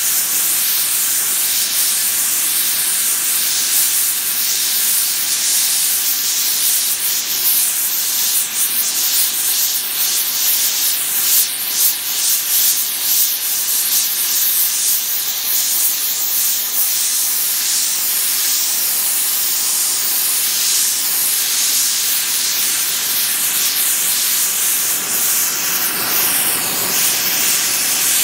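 Gas heating torch burning with a steady hiss as its flame is played on a steel plate clamped in a vice.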